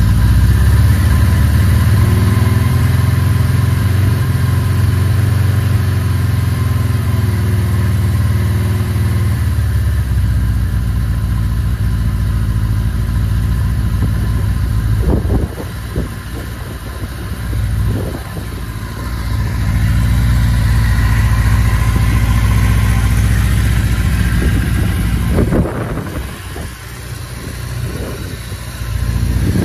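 1983 Suzuki GS1100G's air-cooled inline-four running at a steady idle just after a cold start. About nine seconds in, the lowest part of the note falls away, and in the second half the sound dips and swells several times.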